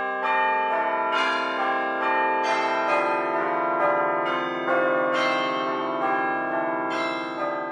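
Background music of bell-like ringing tones, struck in overlapping sustained notes, a new note coming in every second or so, fading near the end.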